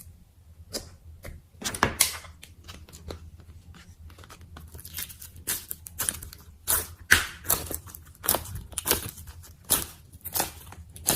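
Slime being poked and pulled by hand, giving a run of short squishing sounds: a few at first, then two or three a second through the second half.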